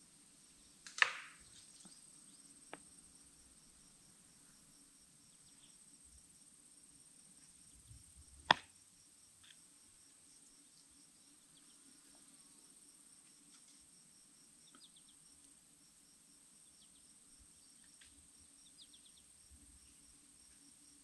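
Quiet woodland ambience dominated by insects: a steady high buzz with a fast, regular chirping rhythm, as from crickets. A sharp swishing rustle about a second in and a single sharp click a little before halfway stand out above it.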